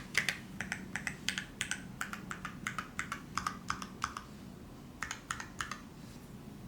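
Typing on a gasket-mounted mechanical keyboard with a brass plate and lubed Kiwi tactile switches: a quick run of key strokes, several a second. The strokes break off a little after 4 s, come back in a short burst, and then die away near the end.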